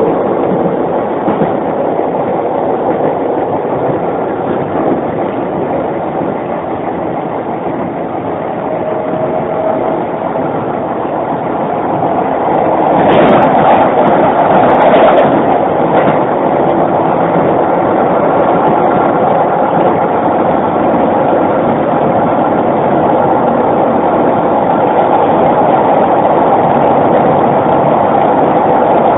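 Keisei 3500-series electric commuter train running, heard from on board the motor car: a steady rumble of wheels and running gear. A louder stretch of clattering comes about 13 to 16 seconds in, as over rail joints or points.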